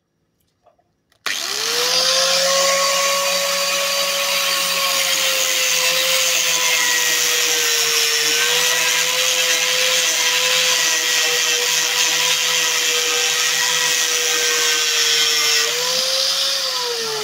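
Angle grinder fitted with a homemade cardboard cutting disc, switched on about a second in and cutting into a medium-thick wooden board: a loud steady motor whine that sags slightly under load. Near the end it is switched off and its pitch starts to fall as the motor winds down.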